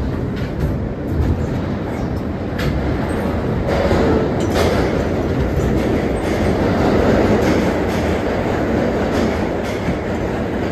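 Ride noise aboard an R160A-1 New York City subway car under way: a steady rumble of wheels on rail that swells from about four seconds in, with a few sharp clicks as the wheels cross rail joints.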